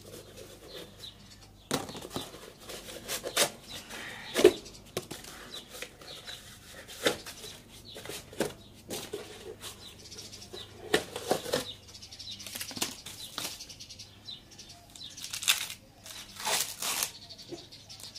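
Cardboard packaging being handled and torn, irregular rustling and scraping with several sharper crackles.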